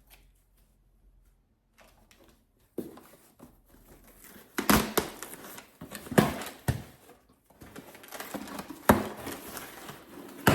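Packaging being handled close up: rustling and crinkling with several sharp taps and knocks, starting about three seconds in, the loudest about five, six and nine seconds in.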